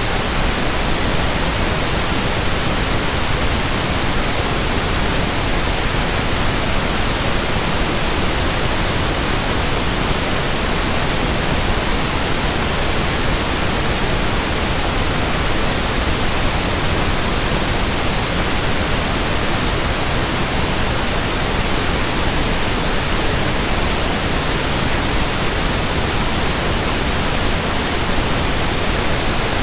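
Steady pink noise test signal: an even, unbroken hiss that does not change.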